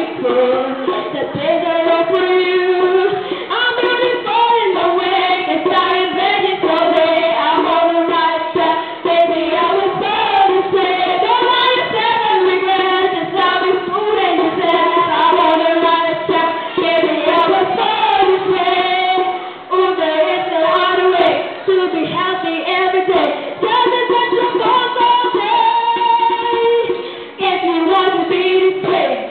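Girls singing a pop song into microphones, amplified, over a steady beat of taps.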